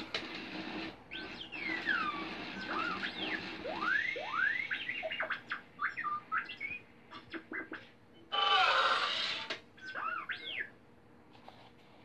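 Toy R2-D2 robot beeping and whistling in quick rising and falling chirps. A louder rasping electronic burst comes about eight and a half seconds in.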